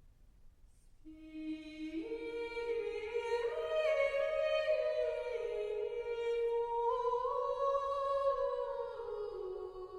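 A single voice singing a slow, wordless melody, starting about a second in. It moves in held notes with short glides, climbs through the middle and sinks lower toward the end.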